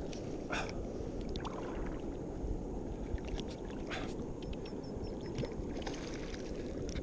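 Shallow saltwater sloshing and lapping close to the microphone, with scattered small splashes and crackles, over a steady low rumble.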